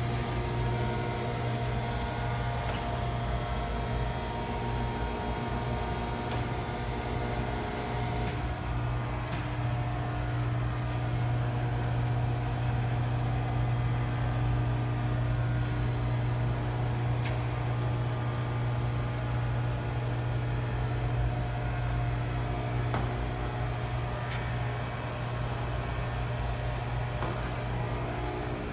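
Chevalier FSG-1632TXII surface grinder running under power: a steady motor hum with several constant tones from the spinning wheel and drives. A higher hiss stops about eight seconds in, while the hum carries on.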